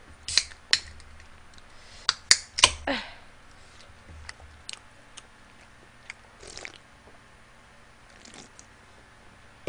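Close-miked chewing and mouth sounds of someone eating, with a cluster of sharp clicks in the first three seconds, then a sip from a soda can near the end.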